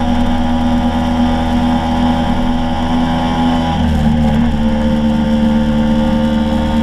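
Scooter engine running steadily at speed while climbing a mountain road, heard up close with road and wind noise; the engine note shifts about four seconds in.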